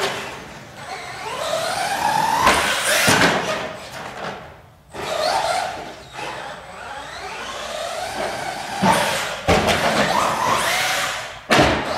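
Brushless electric motor and drivetrain of a 4x4 RC short course truck whining, rising in pitch as it accelerates and falling as it lets off, several times over. A few sharp knocks and thumps from the truck's wheels and body come in between, the loudest near the end.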